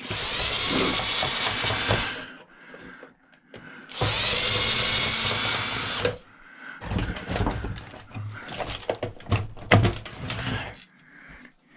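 Power drill running in two bursts of about two seconds each, backing out screws, followed by a spell of knocks and clatters from parts being handled.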